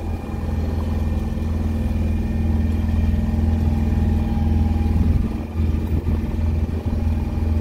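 A Tanzer 26 sailboat's motor running steadily at low throttle: a constant low hum with a few steady higher tones, pushing the boat against a strong river current.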